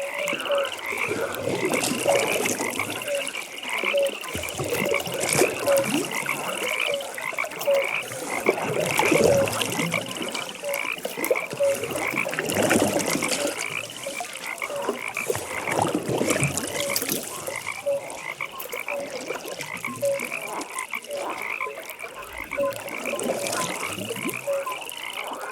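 Pond frog chorus: many frogs calling over one another, with a high call repeating about twice a second and a lower croak coming a little more than once a second.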